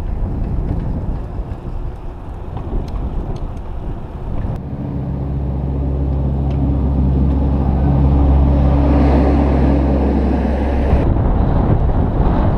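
Wind and road noise of a moving bicycle, then for several seconds the steady low hum of a truck's engine running close alongside as the bike passes it. The engine sound swells and then cuts off suddenly.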